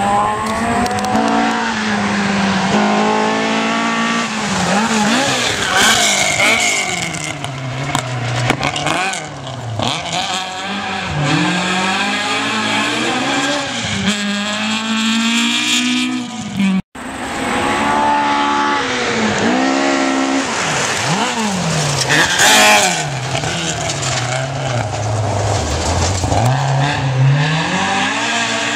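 Classic rally car engines revving hard as the cars pass on a gravel stage, climbing in pitch and dropping back again and again as they change gear. The sound cuts out for an instant about two-thirds of the way through, then another car is heard revving the same way.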